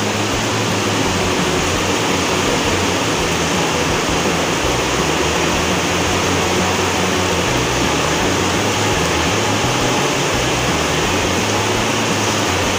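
Heavy rain pouring down steadily on garden foliage, a dense, even hiss of downpour.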